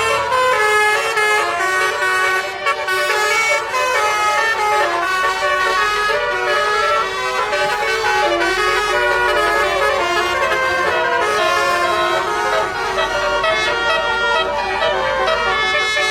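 Bus 'telolet' horn, a multi-tone air horn, playing a quick tune of changing notes without a break.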